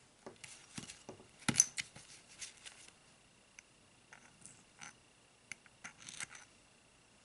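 Small clicks, taps and light scrapes of little rifle-scope parts being handled and fitted together by hand, with one sharper click about a second and a half in.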